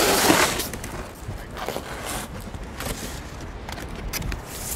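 Cardboard box and packing material rustling and scraping as a small telescope is handled and lifted out, with a longer scrape in the first half second and then scattered light knocks and rustles.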